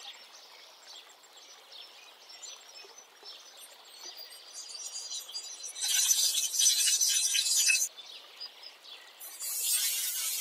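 Faint bird chirps, then about six seconds in a loud crackling sizzle for about two seconds that cuts off abruptly. From about nine and a half seconds there is a steady loud sizzle as diced raw chicken breast drops into a hot aluminium cauldron over a wood fire.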